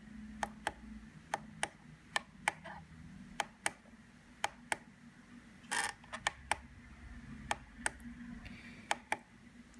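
Button clicks on a FrSky Taranis Plus radio transmitter as its menu pages are stepped through, one about every second and often in quick pairs. A brief rustle comes a little before the middle.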